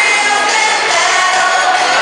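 Loud pop song with singing, played over the gym's sound system.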